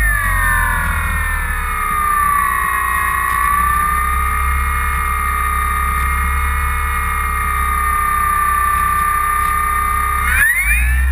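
Electric motor and propeller whine of a Parkzone Radian Pro RC glider, heard from the onboard camera: the pitch falls at the start and holds nearly steady, then drops out briefly about ten seconds in before rising again with the throttle. A steady low wind rumble on the microphone runs under it.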